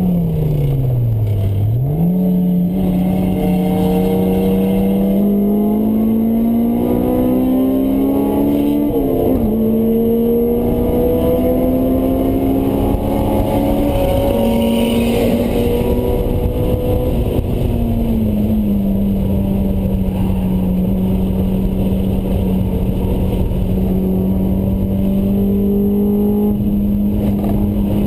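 Honda S2000's high-revving inline-four through a Mugen exhaust, heard from inside the cabin under track driving. The revs drop quickly at first, then climb steadily, dipping briefly about nine seconds in. Later they settle to a steady high-rpm drone.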